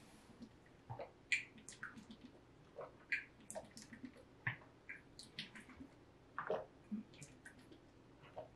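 A protein shake being gulped down from a shaker bottle in one long drink: faint, irregular swallows and liquid glugs, one to three a second.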